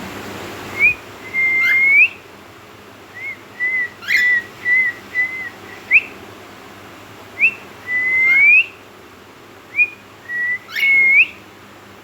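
Male cockatiel singing: a run of clear whistled notes, several short upward swoops and a few longer notes that rise at the end, in bursts with short pauses between.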